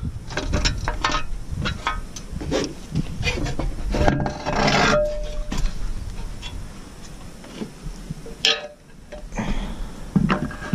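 Metal scraping, rubbing and knocking as a spreading disc is worked loose and taken off its hub on an Amazone ZA-M fertiliser spreader, with a sharp knock about eight and a half seconds in.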